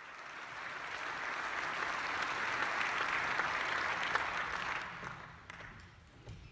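Audience applauding, building over the first second, holding steady, then dying away about five seconds in.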